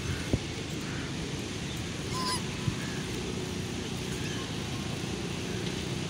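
White domestic geese calling: one clear short honk about two seconds in, with a few fainter calls around it, over a steady low background rumble.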